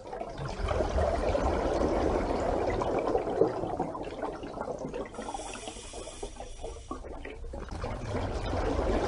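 Water noise: a steady wash of moving water with a low rumble beneath it.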